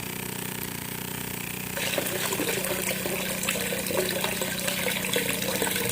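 Water gushing and splashing from a newly drilled borewell's outlet over a steady low machine hum; the splashing gets louder about two seconds in.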